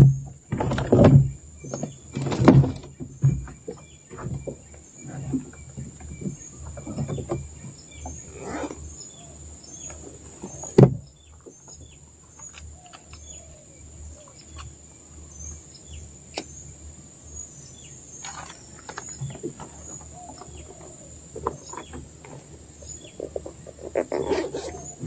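Steady high-pitched animal chirping, a short chirp repeating about once a second over a continuous high drone, with a faint low hum beneath. Loud knocks and bumps break in during the first three seconds, once sharply about eleven seconds in, and again near the end.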